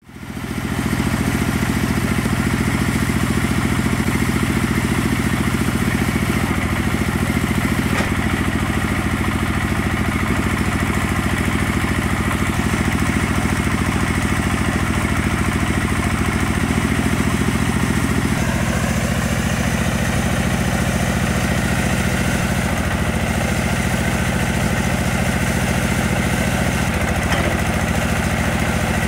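Small tractor's engine running steadily, powering a hydraulic well-drilling rig. About two-thirds of the way in, a higher steady whine joins the engine note and holds.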